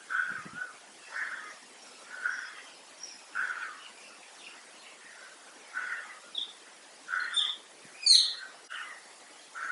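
Birds calling: one bird gives short calls about once a second, and higher chirps from other birds join near the end, the loudest a falling chirp about eight seconds in.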